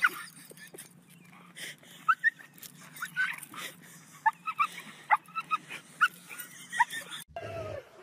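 Dog whining and yipping in many short, high cries, one after another.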